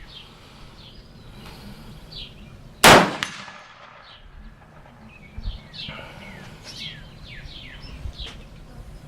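A single .223 shot from a Del-Ton AR-15 rifle about three seconds in, followed by the ring of the steel plate being hit.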